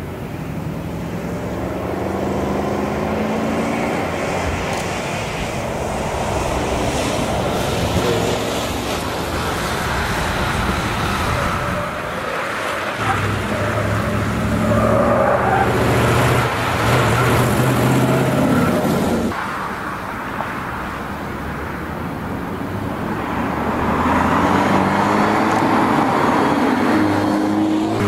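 Historic competition cars' engines accelerating along a hill course, revs climbing and dropping with gear changes. One car is loudest a little past halfway, and another car's engine rises near the end.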